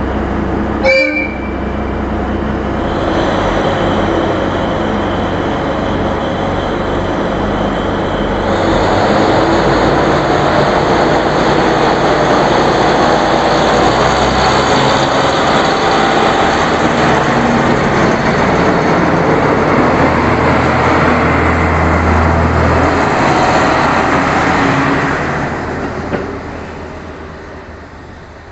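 KiHa 183 series diesel express train departing: a brief toot about a second in, then its diesel engines running hard as it pulls out, growing louder, then fading as the train draws away near the end.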